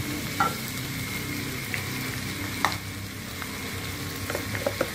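Squid, chillies and petai beans sizzling as they are stir-fried in a wok, stirred with a metal spatula, with a few sharp knocks and scrapes of the spatula against the wok, about half a second in, near three seconds and several small ones near the end.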